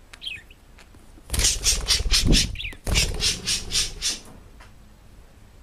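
A parrot giving harsh, rapid squawks in two loud runs, the first about a second in and the second about three seconds in, with short chirps between.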